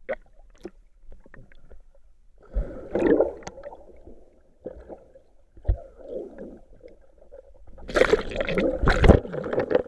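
Muffled underwater sound picked up by a submerged action camera: water moving and bubbling around a swimmer, with a couple of dull knocks. About eight seconds in it becomes loud splashing and sloshing as the camera is near the surface.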